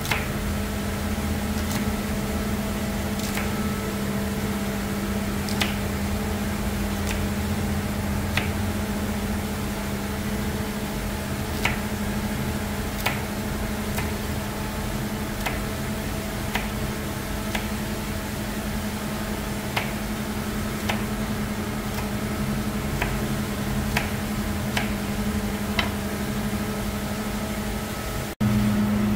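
Kitchen knife cutting green chili peppers on a cutting board: a short sharp tap each time the blade goes through to the board, irregularly about once a second. A steady low hum runs underneath.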